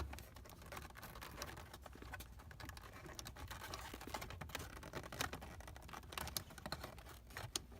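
Faint, irregular small clicks and taps of plastic trim being pried loose: the lower steering column cover of a BMW E36 M3 coming away from the column.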